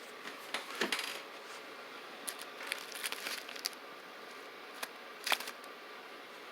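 Packs and bricks of Black Cat firecrackers being handled and stacked: scattered crinkles of wrapping and light clicks and knocks, with the sharpest click about five seconds in.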